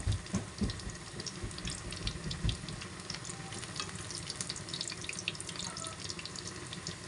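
Batter-coated kangkong leaves deep-frying in hot oil in a wok: a steady sizzle with many quick crackles and pops. A few low knocks in the first couple of seconds as metal tongs turn the leaves against the pan.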